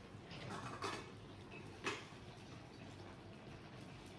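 Faint handling of cooked pasta with metal tongs at a steel pot: two soft clicks, about one and two seconds in, over a low background.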